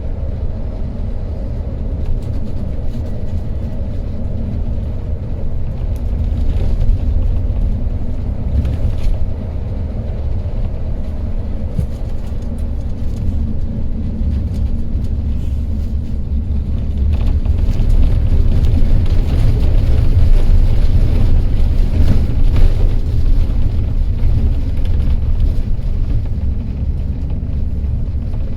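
Intercity coach bus running on the highway: a steady low engine and road rumble that grows louder for several seconds past the middle.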